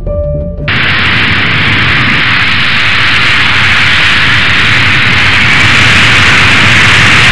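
Loud steady rushing hiss like white noise, starting abruptly just under a second in after a moment of music, swelling slightly and then cutting off sharply.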